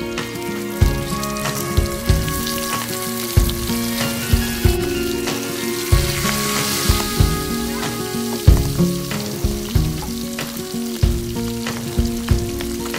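Milkfish steaks sizzling as they fry in hot oil in a nonstick pan, a steady crackling hiss, over background music.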